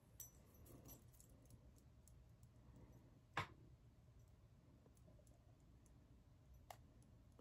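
Near silence: room tone with a few faint small clicks, the clearest about three and a half seconds in and another near the end.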